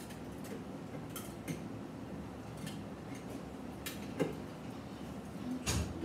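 Scattered light clicks and taps over a faint steady room background, a few seconds apart, with a louder knock near the end.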